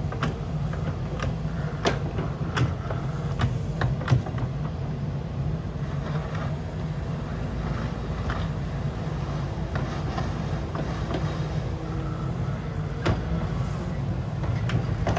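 Wheeled excavator's diesel engine running steadily with a low hum, with scattered sharp clicks and knocks, the loudest about four seconds in and again near the end.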